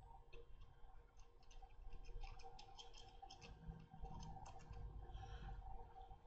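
Faint handling noise: many small clicks and ticks, several a second, from a tube of UHU glue being squeezed and a small model aircraft's wing and fuselage being held and turned.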